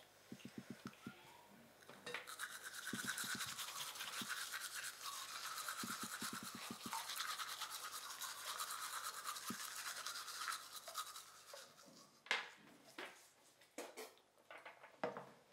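Several manual toothbrushes scrubbing teeth with fast, steady strokes, starting about two seconds in and stopping around eleven seconds. Near the end come irregular wet spits and splashes as mouths are rinsed from cups.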